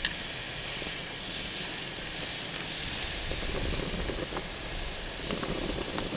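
Steady hissing sizzle of a thick seasoned steak searing on the hot grates of a portable propane grill, with a few faint crackles.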